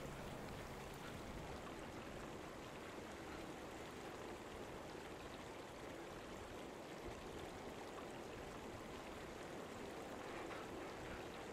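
Faint, steady rushing of a mountain stream.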